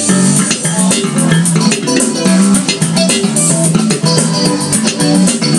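Electric bass guitar playing a moving line of low notes over a recorded backing track of drums and guitar, with quick, steady cymbal ticks on top.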